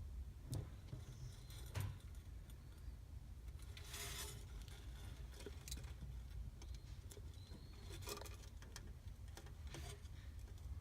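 Faint scattered rubbing, scraping and small clicks, like a lizard being handled, over a low steady hum, with a short hiss about four seconds in and another near eight seconds.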